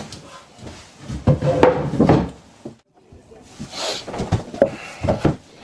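Wooden knocks, thuds and scrapes of MDF boards being handled and set down on a workbench, in two clusters with a short break between.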